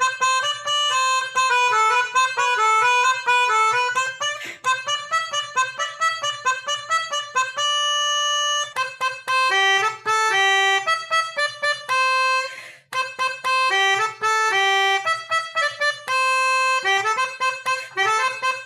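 Basuri "telolet" multi-trumpet bus air horn playing a quick melody of short reedy notes, with longer held chords about eight seconds in and again near sixteen seconds.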